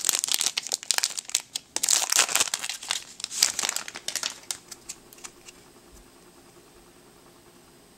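Foil Yu-Gi-Oh! Crimson Crisis booster pack wrapper crinkling and crackling as it is opened and the cards are pulled out. It dies away about four seconds in, with a few light clicks after.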